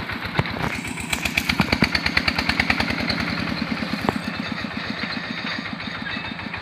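Small engine of a Super Bull oil-palm fruit carrier running with a rapid, even chugging of about nine beats a second, a little louder between one and three seconds in. There are a couple of sharp knocks, one near the start and one about four seconds in.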